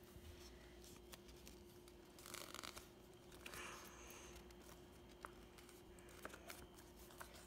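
Faint rustling of a paper sheet being handled and folded, with two short swishes a few seconds in and a few light taps later, over a faint steady hum.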